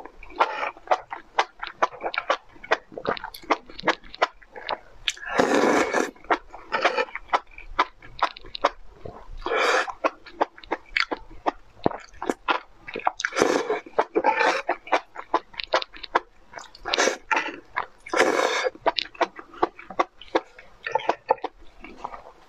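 Close-miked eating: a person slurping up enoki mushroom strands and chewing them, with quick mouth clicks throughout and several longer slurps.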